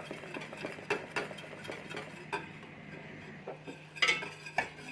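A utensil stirring lemon cream in a saucepan on the stove, with irregular scrapes and taps against the pan and a louder clatter about four seconds in.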